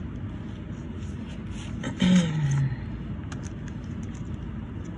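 Steady low background rumble with a few faint clicks from plastic packaging being handled, and a short hummed 'mm' falling in pitch about two seconds in.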